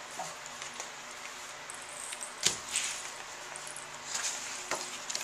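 Sheet of paper being handled on a paper-covered table: light rustling, with a sharp tap about halfway through and two more near the end.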